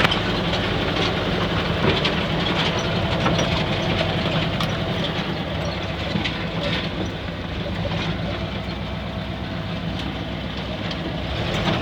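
LuAZ-969A's air-cooled V4 engine running steadily at low speed, with scattered light clicks and rattles. It eases off slightly in the second half.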